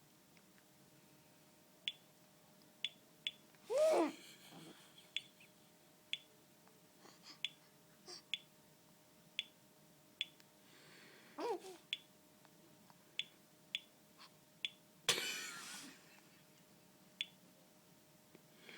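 A baby's sneeze build-up: short whimpering cries that rise and fall in pitch, about 4 and 11 seconds in, then a sudden loud breathy burst about 15 seconds in that fades over a second. Faint sharp clicks are scattered throughout.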